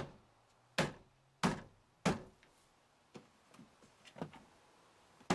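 Hand blows on a pickup's inner door trim panel, punching its snap clips home into the door: four sharp thumps about two-thirds of a second apart, then lighter knocks and one more sharp thump at the end.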